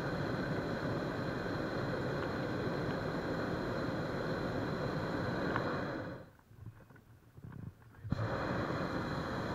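Hot-air balloon's propane burner firing in a long, steady blast that cuts off sharply about six seconds in, then firing again about two seconds later.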